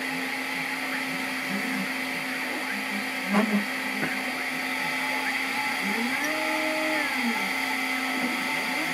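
Stepper motors of a CNC 3018 laser engraver whirring in short moves as the laser head traces the lettering, over a steady hum. About six seconds in, one longer move rises in pitch, holds, then falls as the head speeds up, travels and slows.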